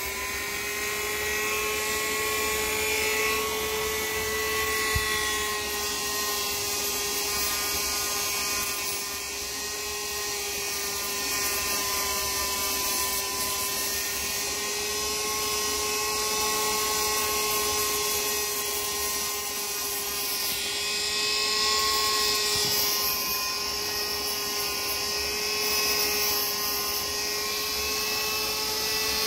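Small high-speed electric power tool running steadily with an even high whine, a rougher hiss rising and falling over it about two-thirds of the way through.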